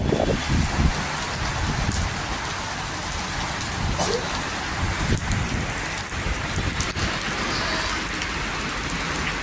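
Heavy, wind-driven cyclone rain pouring steadily, with gusting wind rumbling on the microphone, strongest in the first second.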